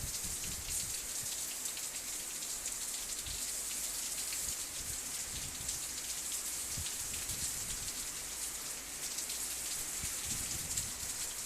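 Heavy rain and sleet falling: a steady hiss thick with the fine patter of drops, with a few soft low thuds.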